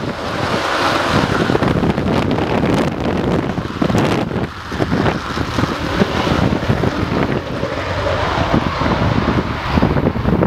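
Panavia Tornado GR4's twin RB199 turbofans in full afterburner on the take-off roll: a loud, rough, continuous jet roar.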